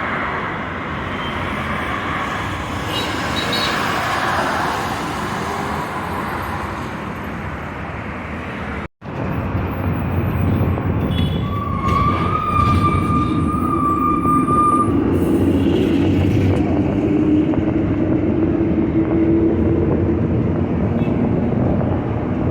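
Road traffic noise: a steady rush of engines and tyres, cut briefly by an edit about nine seconds in. A few seconds later a vehicle horn sounds one long, steady blast of about three seconds.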